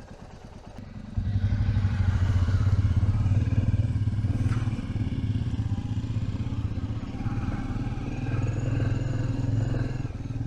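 Motorcycle engine running, quiet at first, then about a second in it suddenly gets much louder, a steady low pulsing that holds on with slight swells.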